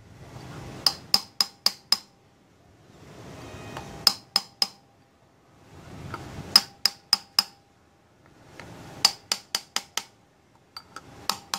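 Hammer tapping on a steel socket used as a drift to seat the coil plate (stator) evenly into the aluminium crankcase of a Honda CD-70 engine. The taps come as five bursts of three to six quick, ringing metallic taps, about every two to three seconds.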